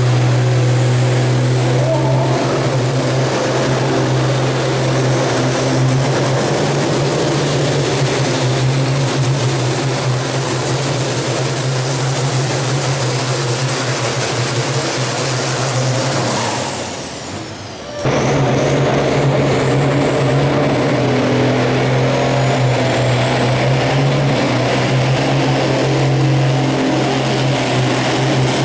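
Ford farm tractors' diesel engines running hard under full load while pulling a weight-transfer sled, with a steady deep drone and a high whistle above it. The sound fades away about 16 seconds in, and a second pull starts up loud again about 18 seconds in.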